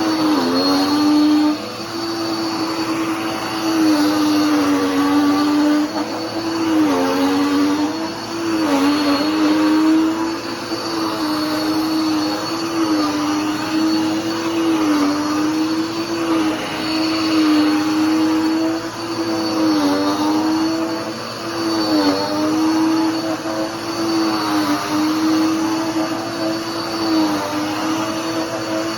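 Dirt Devil PowerMax Pet vacuum cleaner running, its motor tone dipping briefly and recovering every couple of seconds.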